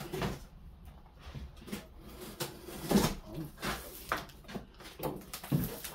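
Cardboard box being opened and its contents handled: irregular rustling and knocks, the loudest about three seconds in.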